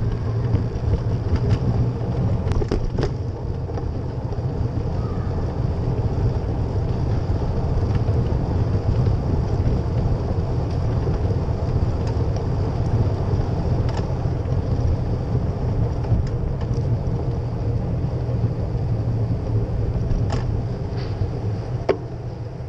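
Steady low rumble of wind buffeting and road vibration on a bicycle-mounted action camera's microphone while riding over city pavement, with a few sharp clicks and knocks scattered through it.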